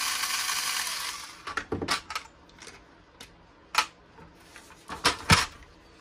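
Cordless electric screwdriver running, winding down and stopping about a second in as a screw comes out. Then a scatter of light clicks and knocks as the tool is set down and the RC truck is handled and turned over, with the loudest knock about five seconds in.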